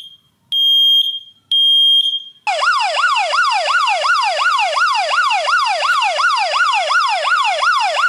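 Shelly Plus Smoke alarm sounding in response to smoke: high, steady piezo beeps about once a second. About two and a half seconds in, a loud electronic siren takes over, wailing rapidly up and down about three times a second: the smartphone's critical smoke alert going off.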